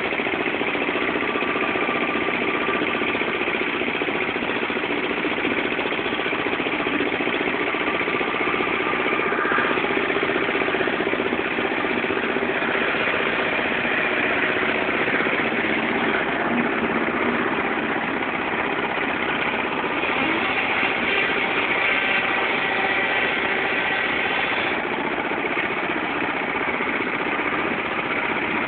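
Agrale 4100 tractor's single-cylinder diesel engine running steadily, with a loud roar.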